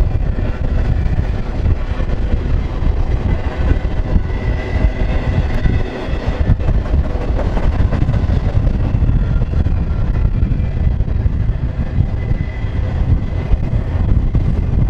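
Freight cars of a BNSF intermodal train, truck trailers on flatcars, rolling past at speed: a steady, loud rumble and rattle of steel wheels on rail, with a faint high squeal coming and going.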